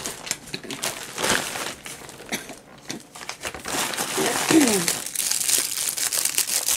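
Plastic crinkling and rustling as a hand rummages in a plastic poly mailer bag and pulls out an item wrapped in clear plastic. A brief falling tone sounds about halfway through.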